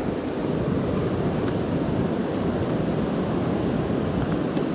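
Steady rushing of river water, an even noise with no distinct events.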